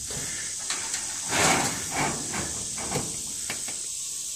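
Sheet-metal roof flashing scraping and rubbing over the metal ridge cap and roof panel as it is slid into place, in a few uneven scrapes, the loudest about a second and a half in.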